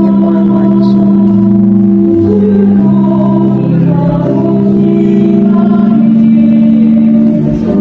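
Congregation singing a hymn to held organ-like chords, the notes moving step by step every second or two; a closing hymn after the Mass dismissal.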